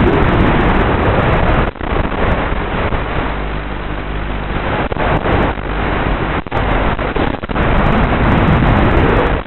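Brushless motors and propellers of a 210-size FPV racing quadcopter running in flight, heard with heavy wind and prop-wash noise. The motor pitch rises near the end as the throttle comes up. The sound cuts out for an instant a few times.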